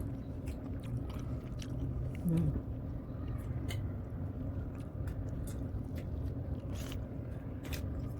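Close-up eating of soft cake, chewing with scattered small wet mouth clicks, over a low steady hum.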